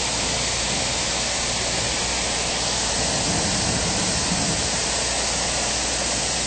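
High-pressure spray wand of a self-serve car wash spraying water onto a car: a steady, loud hiss of water jet and spray.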